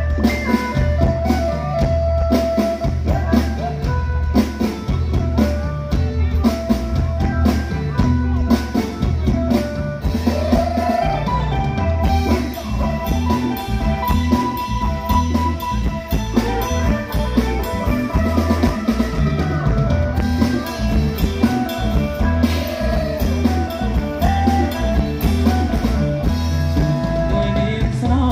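Live band playing loud amplified music through a PA, with drum kit, electric guitars and bass under a steady heavy beat, and a singer on a microphone.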